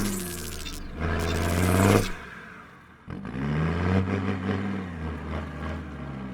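Land Rover Defender 90's Td5 five-cylinder turbodiesel, remapped for more power, pulling hard under acceleration. Its note surges loudly about a second in, dies away around the middle, then picks up and rises again.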